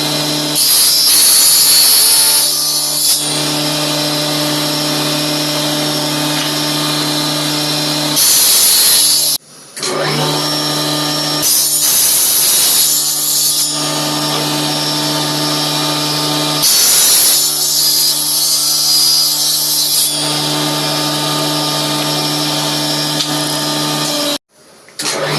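Handheld electric power tool running with a steady motor hum, cutting into wood in several passes of a few seconds each, heard as stretches of louder hiss; it stops briefly twice.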